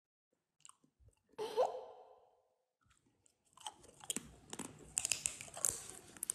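Near silence, then a short pitched tone about a second and a half in that fades away, followed from about halfway through by a dense run of close crisp crunching and clicking.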